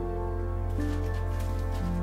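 Gentle instrumental background music, sustained soft notes changing about once a second.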